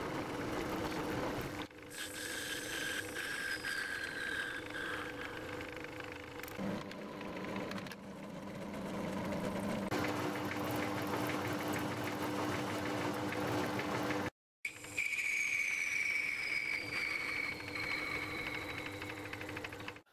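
Small lathe running steadily with a hand tool worked against a spinning brass workpiece. A high whine slides slowly down in pitch, twice.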